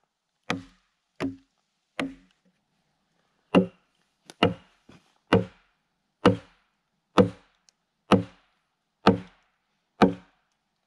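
Wooden mallet striking the back of an axe head set in a log, driving the axe like a wedge to split the log lengthwise. Eleven solid knocks come about one a second, each with a short low ring from the wood, with a brief pause after the third.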